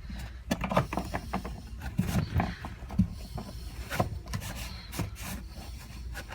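Irregular rubbing, rustling and light knocks of hands working absorbent material to soak up spilled gasoline around the fuel tank opening.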